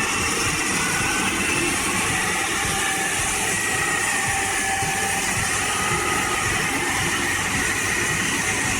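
Heavy logging machinery running steadily, its engine noise even and unbroken, with a faint wavering high whine over it.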